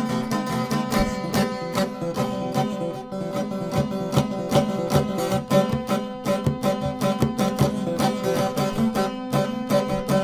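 Bosnian polusaz, a long-necked lute with tied frets, picked rapidly with a plectrum: a quick folk melody of fast strokes over steadily ringing drone strings.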